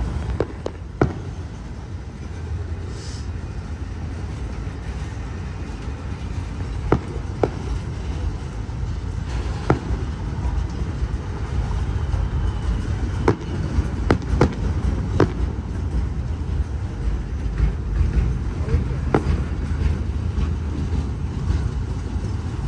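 Fireworks going off with sharp pops and bangs at irregular intervals, about a dozen reports, over a steady low rumble.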